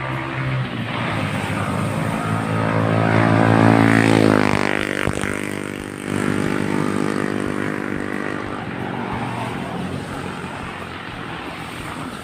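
A small engine passing close by: it grows louder for about four seconds, drops in pitch as it goes past, then fades away.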